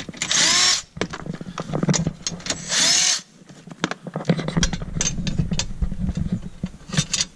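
Milwaukee cordless driver spinning out 10 mm bolts: two short whirring bursts of the motor, then a longer run of rapid clicking and rattling.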